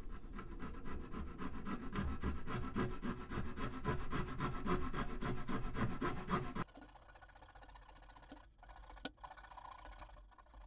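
A fine-bladed hand saw cutting through a balsa wood block in quick back-and-forth strokes. The sawing stops abruptly about two-thirds of the way through, leaving faint background with a single click.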